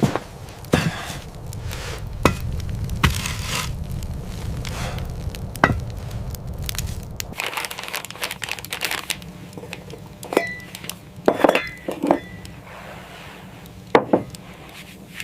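Scattered sharp cracks and short crinkling, crunching noises over a low rumble that drops away about halfway through.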